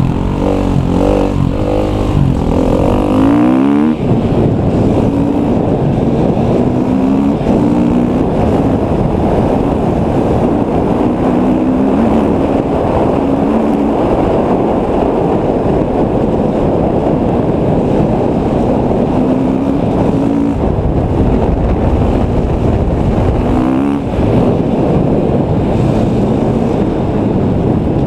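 KTM EXC 250 enduro motorcycle engine under hard riding, rising in pitch again and again as it accelerates and drops between gear changes, loudest rises in the first few seconds.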